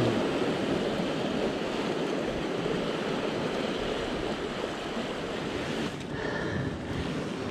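Sea swell washing against a rocky shore: a steady rushing noise.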